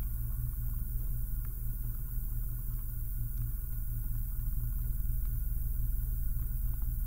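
Steady low electrical hum with a faint higher steady tone, and a few faint, scattered computer mouse clicks as keys are clicked on an on-screen calculator keypad.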